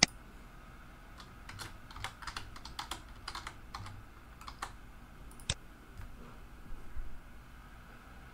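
Typing on a computer keyboard: scattered keystrokes in short runs, with a few sharper, louder clicks, one right at the start and one about five and a half seconds in.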